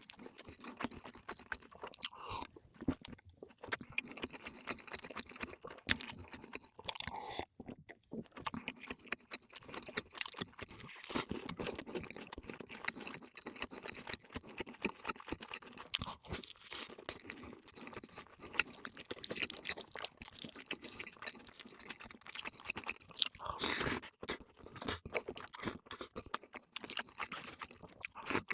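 Close-miked eating: crunching and chewing of crisp food, with many irregular sharp crackles throughout.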